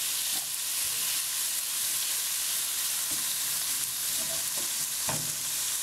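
Thin strips of beef and garlic sizzling steadily in hot oil in a nonstick wok. A silicone spatula scrapes softly as it spreads the meat over the pan bottom.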